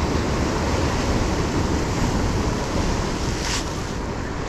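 Sea surf breaking and washing over the boulders of a rock jetty, with wind rumbling on the microphone. A brief hiss stands out about three and a half seconds in.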